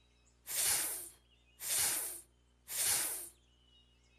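A voice making the letter F's sound three times: a long hissing "fff", each about two-thirds of a second, with short gaps between.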